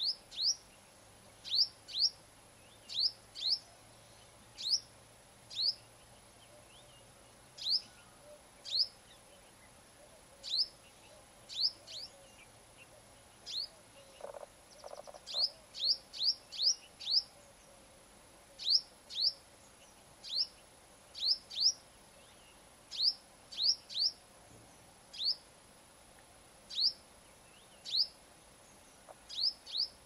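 Female purple-rumped sunbird calling: short, sharp, high chirps that sweep steeply down in pitch, repeated many times, singly or in quick twos and threes.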